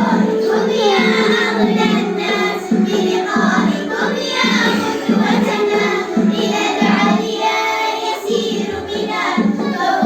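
Children singing along to music with a steady beat.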